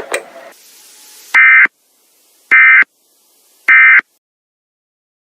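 Emergency Alert System end-of-message tones: three short, loud bursts of buzzy SAME digital data, each about a third of a second long and about a second apart, closing the alert message.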